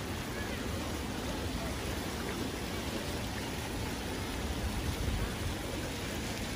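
Steady splashing hiss of ground-level fountain jets spraying onto wet paving, with a low rumble underneath.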